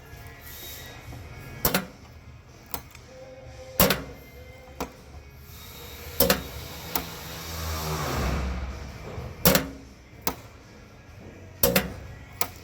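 Hammer blows on a car's sheet-metal quarter panel: about ten sharp, irregular strikes a second or so apart, some with a short metallic ring. A longer sound swells and fades between them around the middle.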